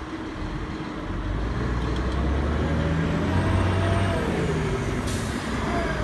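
Double-decker bus engine pulling away, its low hum growing louder from about a second in, with a short hiss from the air brakes about five seconds in.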